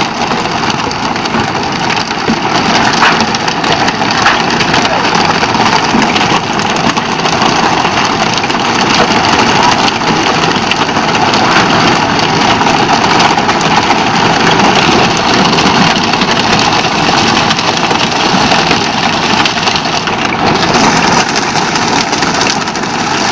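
Steady drone of a fishing boat's engine running under way, mixed with rushing water and wind noise on deck.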